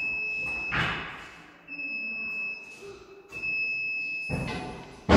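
Stratos SR40 scissor lift lowering, its warning beeper sounding steady high beeps of about a second each, roughly every one and a half seconds. A noisy clunk comes about a second in and two louder clunks come near the end, the last the loudest.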